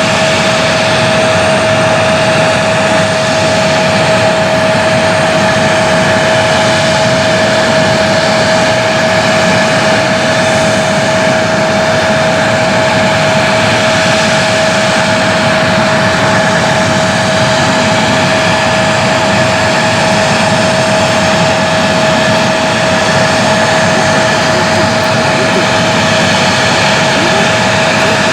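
Jet airliner engines running steadily, with a constant whine over the engine noise.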